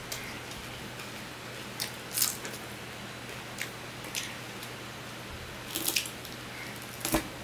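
Fingers mixing and pinching cooked rice on a steel plate: scattered short, wet squishes and clicks, the loudest just past seven seconds, over a steady low hum.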